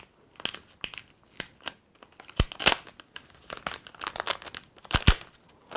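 Small plastic bag crinkling and being torn open by hand: a string of irregular crackles with a few sharper snaps about two and a half and five seconds in.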